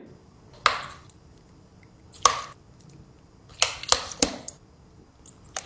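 A person biting and chewing crunchy fried chicken: about six short, crisp crunches with quiet gaps between them, three in quick succession midway.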